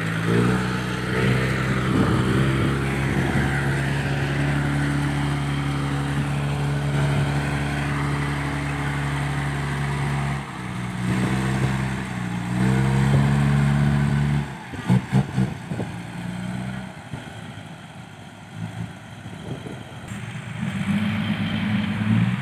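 Dump truck's diesel engine pulling under load through loose sand, holding a steady note that steps down twice partway through. It falls away about fifteen seconds in with a few short thumps, and a truck engine comes up again near the end.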